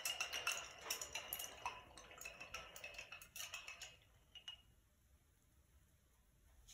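Rapid light clinks and taps of a paintbrush against a paint container, dying away about four and a half seconds in.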